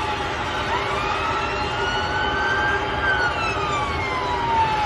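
Emergency vehicle siren wailing, its pitch sliding slowly down, back up over about two seconds, and down again, over a steady low rumble.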